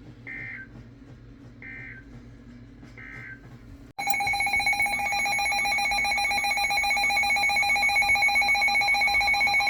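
Three short bursts of EAS digital data tone, the end-of-message signal closing a National Weather Service warning broadcast. About four seconds in, a loud, steady, pulsing alert tone starts: the alarm announcing a new severe thunderstorm warning.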